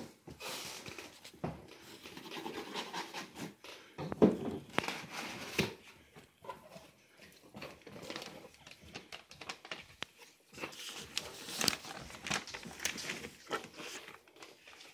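Cardboard box being opened and its contents handled by hand: irregular rustling and scraping of cardboard and paper, with a few sharp knocks.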